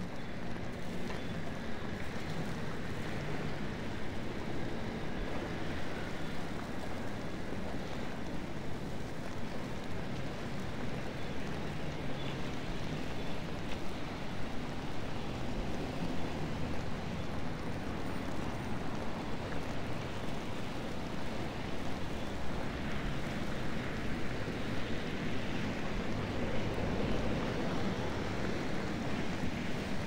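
Steady city street noise of traffic on snow-covered roads: an even rushing sound with no breaks.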